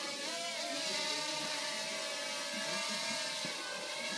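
Hubsan X4 micro quadcopter's small brushed motors and propellers buzzing in a high-pitched whine as it hovers. The pitch wavers briefly about half a second in, then holds steady.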